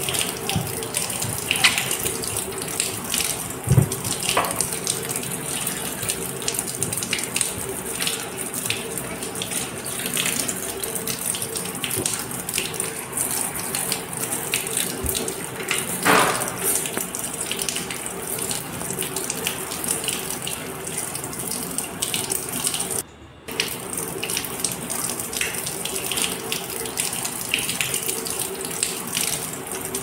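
Steady rushing hiss, like running water, with a few short sharp sounds over it. The whole sound cuts out briefly about two-thirds of the way through.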